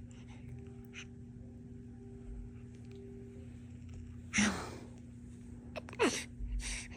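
Newborn baby's small vocal sounds: a short breathy exhale about four seconds in, then a brief falling squeak and little grunting noises near the end, over a steady low hum.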